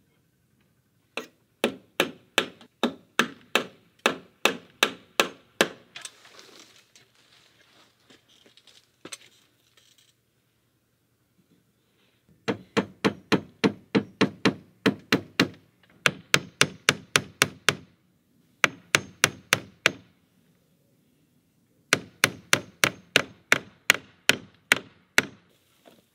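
A hammer driving nails into the cabin's wooden eave board, in quick runs of steady blows about three a second, with short pauses between the runs.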